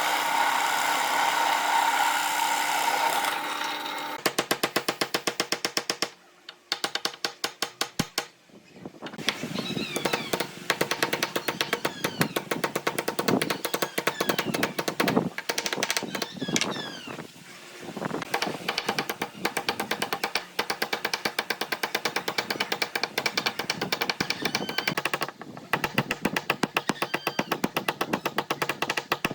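Background music with a fast, steady clicking beat that drops out briefly a few times.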